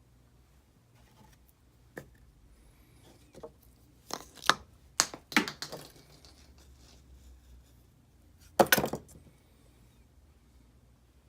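Hard objects being handled and set down: a single knock, then a run of clattering knocks around the middle, and another short clatter near the end.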